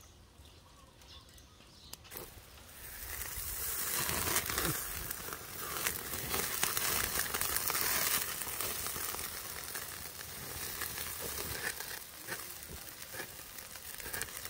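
Eels on skewers sizzling over a charcoal fire, their juices hissing on the coals with a few small pops. The sizzle swells about three seconds in, is loudest in the middle, then eases off.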